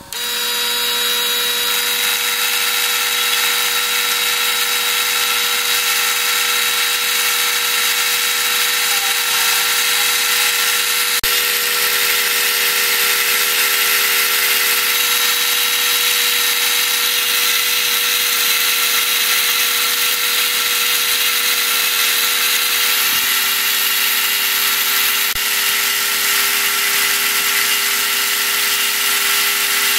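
Small milling machine's end mill cutting a 6000-series aluminium (dural) block: the motor and spindle run with a steady whine over a constant cutting noise.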